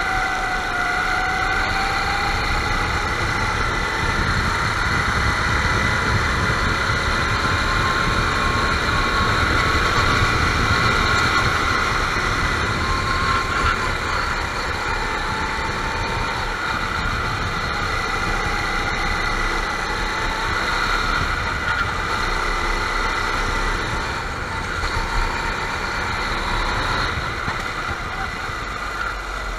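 Go-kart engines running steadily, their pitch rising and falling slowly now and then.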